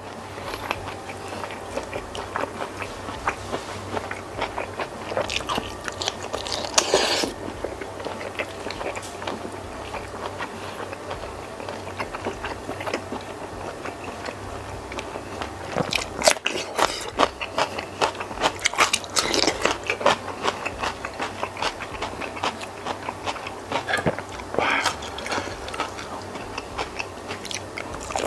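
Close-miked eating: chewing and biting on spicy jumbo cuttlefish and rice eaten by hand, a dense run of short wet clicks, with louder flurries about seven seconds in, from about sixteen to twenty seconds, and near twenty-five seconds.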